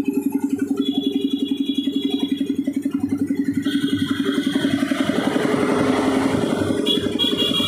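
Piston air compressor running with a rapid, even chugging of about twelve beats a second. From about four seconds in, a louder rushing noise rises over it.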